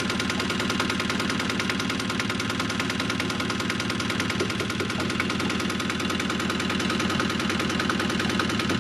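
Yanmar 1GM single-cylinder marine diesel running steadily, with a rapid, even beat.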